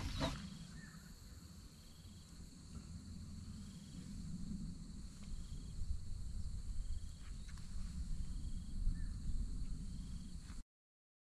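Insects trilling in a steady high drone, with faint short chirps repeating about once a second and a low rumble underneath. It cuts off suddenly near the end.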